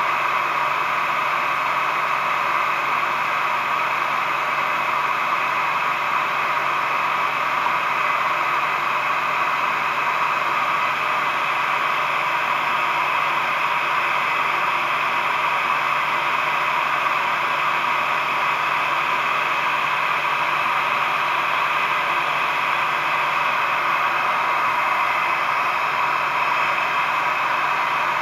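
Heat gun running on its cool setting, a steady blowing hiss of fan and air that does not change, directed at the engine's cooling-flap thermostat.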